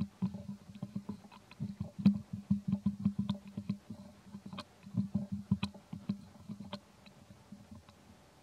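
A baby long-tailed macaque nursing against its mother, with a fast, irregular run of soft low sucking pulses and sharp clicks, about four a second, tailing off near the end.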